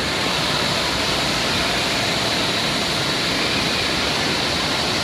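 Steady rush of running and splashing water from water-park features, an even noise without breaks.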